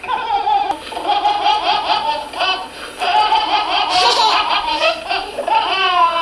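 A small child laughing hard in long high-pitched peals, with brief catches of breath in between.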